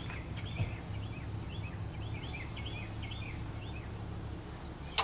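A small bird chirping over and over, short quick chirps two or three a second, over a steady low hum. A single sharp click right at the end.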